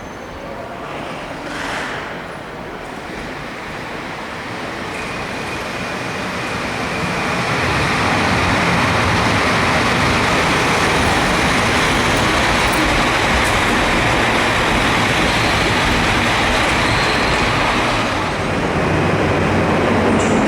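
A train running through the station: its noise grows over the first seven or eight seconds, then holds steady with a high steady whine, dipping briefly near the end.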